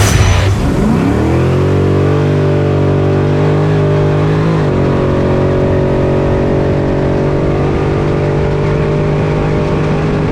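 Off-road race truck's engine heard from inside the cab: the revs fall over the first second or so, then it runs at a steady pitch, with a brief dip about four and a half seconds in.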